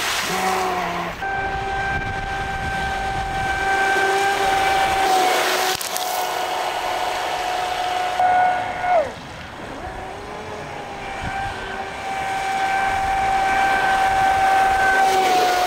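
Traxxas Spartan RC speedboat's brushless electric motor running at high throttle with a steady high whine, over the hiss of its spray. About nine seconds in the whine falls in pitch and quietens as the throttle is eased, then climbs back up.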